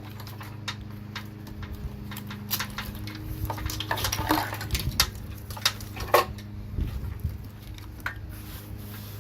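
Scattered clicks, clinks and knocks of an engine wiring harness being worked loose and pulled out of a car's engine bay, its plastic connectors and clips tapping against metal, over a steady low hum.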